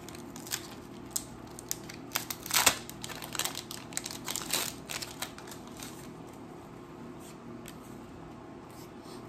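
Foil wrapper of a Pokémon booster pack being torn open and crinkled in the hands: a run of sharp crackles over about five seconds, loudest a couple of seconds in, over a steady low hum.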